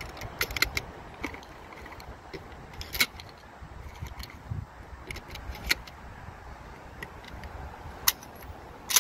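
Scattered sharp metallic clicks and clacks from firearms and ammunition being handled on a bench: an AR-style rifle and ammo boxes, then a Mossberg 500 pump shotgun being picked up.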